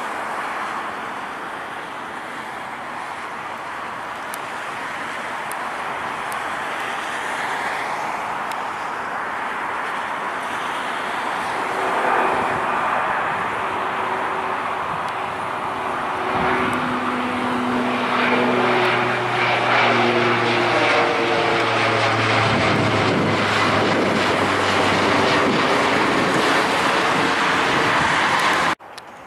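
Dash 8-400 (Q400) twin turboprop airliner climbing out after takeoff and passing overhead: a steady propeller drone that grows louder through the second half. The pitch of its propeller tones falls as it goes by, and the sound cuts off abruptly near the end.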